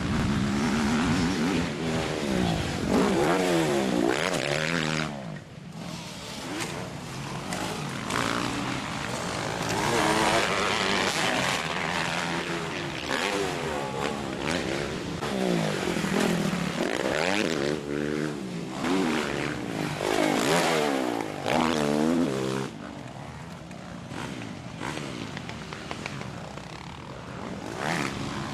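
Motocross bike engines revving hard and backing off again and again, the pitch rising and falling with each burst of throttle as the bikes pass. The sound gets somewhat quieter about three-quarters of the way through.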